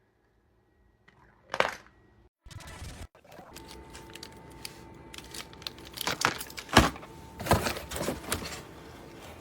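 Plastic toy pieces being handled: a sharp click about a second and a half in, then rustling with a run of clicks and clacks.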